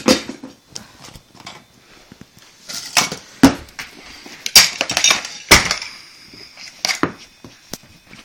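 Hard objects being banged and knocked about in a string of loud knocks and crashes with some clinking: one blow at the start, then a run of heavier blows from about three to seven seconds in.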